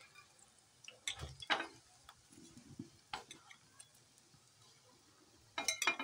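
A metal slotted spoon clinks and scrapes against a frying pan and a plate as chicken nuggets are moved in and out of hot frying oil. There are a few sharp clinks, about a second and a half in and in a quick cluster near the end, over faint sizzling of the oil.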